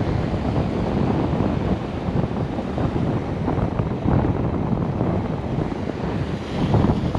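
Wind buffeting the microphone over the wash of surf: a steady, gusting rush with no distinct events.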